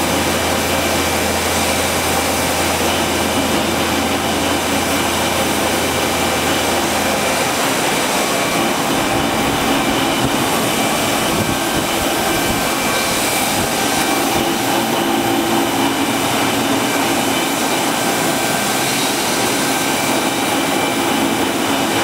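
Large engine lathe running, turning a huge counterweighted crankshaft that is being trued up: a loud, steady mechanical drone. A deep hum underneath stops about a third of the way in.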